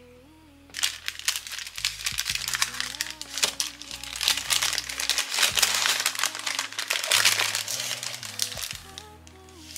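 Thin printed wrapping paper crinkling and rustling as it is unfolded by hand from around a cake, starting about a second in and dying down near the end, over background music.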